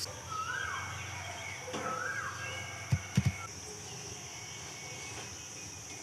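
Outdoor rural ambience: a steady high-pitched insect drone, two whistled bird calls that rise and then hold in the first two seconds, and three short knocks about three seconds in.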